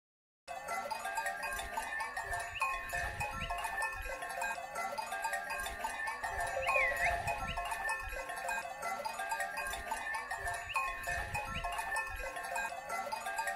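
Many bells worn by a flock of livestock clanking and jingling together without a break, starting abruptly about half a second in.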